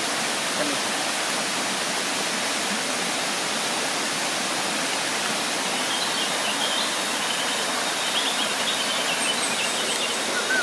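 Jungle stream water rushing in a steady, even hiss. Faint high chirps come in from about six seconds in.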